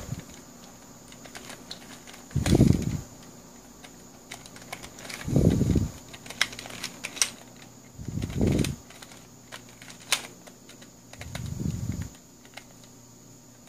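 Plastic Pyrastar twisty puzzle being turned by hand, its pieces clicking as the layers twist. The loudest sound is a dull low rush that comes about every three seconds.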